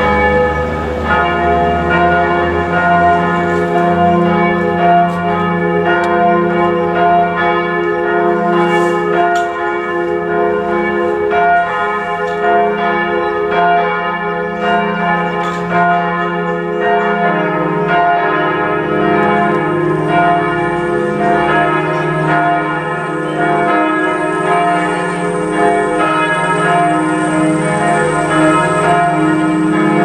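Several church bells swinging in a tower and ringing together in a full peal, their overlapping tones struck over and over in a steady, continuous pulse. The mix of strikes changes a little over halfway through.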